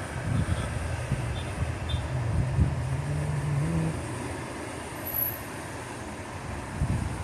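Motor traffic over a steady rushing background, with one vehicle's engine rising in pitch as it accelerates for a couple of seconds near the middle.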